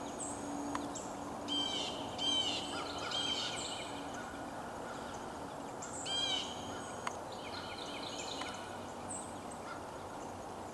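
Songbirds calling in woodland: several short bursts of quick, falling high notes and a few single chirps over a steady background hiss, with two faint clicks.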